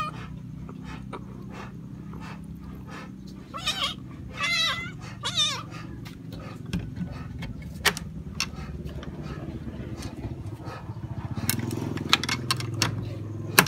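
Cats meowing: three high, wavering meows about four to five and a half seconds in, with a few sharp clicks later on.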